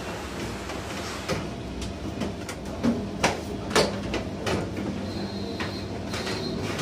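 Scattered knocks and scrapes as a 42-inch Hitachi LCD TV lying face down is shifted and turned on a bench, its plastic back cover bumping and sliding, over a steady low hum.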